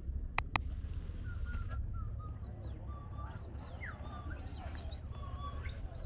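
Birds chirping, with many short, quick calls over a steady low rumble. Two sharp clicks about half a second in.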